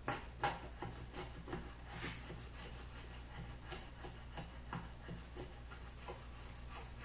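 Wood chisel pushed by hand, paring shavings out of a slot in a wooden block: a string of short, faint scraping cuts, about two a second.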